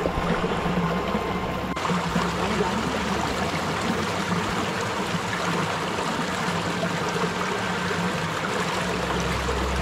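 Shallow stream flowing steadily over rocks and pebbles close by, a continuous splashing trickle.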